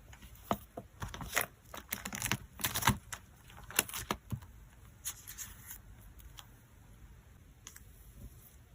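Close-up handling of photocards and their plastic packing: a quick run of clicks, taps and short crinkling rustles, busiest in the first half. A longer rustle follows, then only a few soft ticks.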